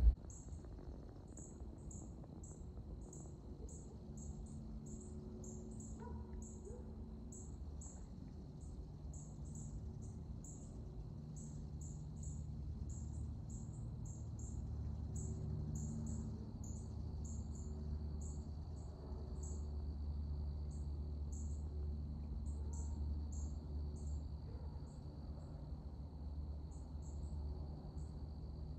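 Insects chirping in woodland: short high chirps repeating about twice a second over a steady high insect drone, with a low steady rumble underneath that grows a little louder past the middle.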